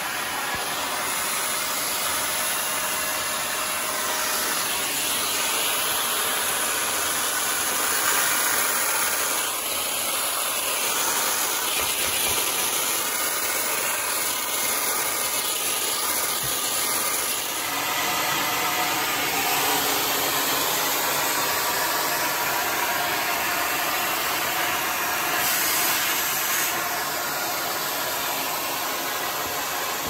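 Shark vacuum cleaner running steadily, its motor and rushing air giving a continuous hiss as the nozzle sucks up dust and lint.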